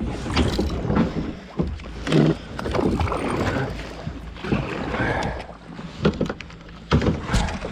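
Water splashing and knocking around a small fishing boat, with several sharp bumps scattered through it, likely gear or a pole striking the hull.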